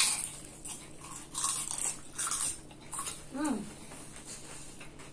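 Close-up chewing of crisp romaine lettuce, with a few short crunchy crackles in quick succession. A brief hummed 'mm' that rises and falls in pitch about three and a half seconds in.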